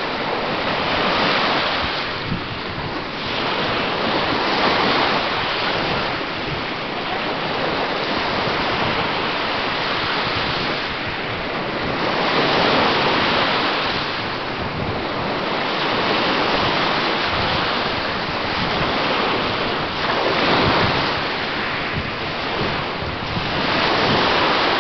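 Small Lake Michigan waves breaking and washing on a sandy beach, the surf rising and falling every few seconds.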